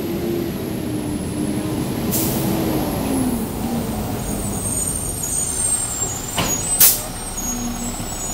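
Diesel engine of a Republic Services yard waste garbage truck pulling up and slowing to a stop, its engine note dropping about three seconds in. Two short air-brake hisses, the louder one near the end.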